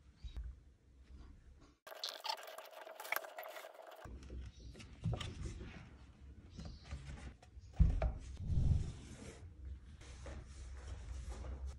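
Plastic water-filter housings and small brass fittings being handled on a work mat: rubbing and scraping with light knocks and clicks, and one louder knock about eight seconds in.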